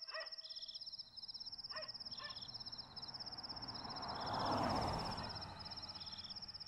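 Night ambience of crickets chirring in fast, pulsing high trills, with a few faint dog barks in the first couple of seconds. Around the middle, a soft whoosh swells and fades.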